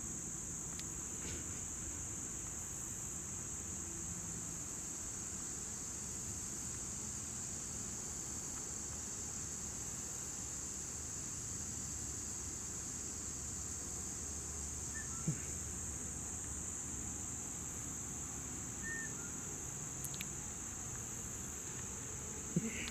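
Steady, unbroken high-pitched chorus of insects, typical of late-summer crickets, with a low rumble underneath and two brief knocks, one about two-thirds of the way in and one near the end.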